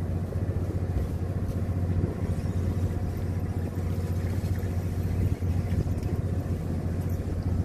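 Fishing boat's motor running steadily, a low, even drone.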